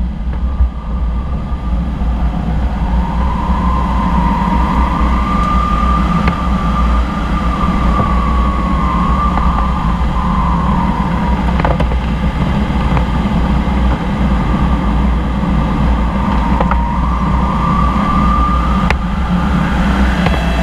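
Airflow rushing over a glider's canopy and airframe in aerobatic flight: a loud, steady rush with no engine. A thin high tone wavers up and down in pitch for several seconds at a time, twice.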